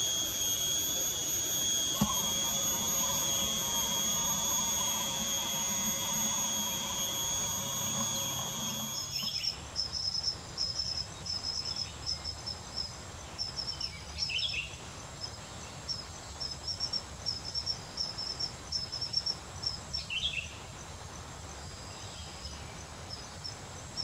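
Forest insects: a steady high-pitched buzzing drone for about the first nine seconds, then rapid, repeated high chirping. Three short falling calls stand out over the chirping.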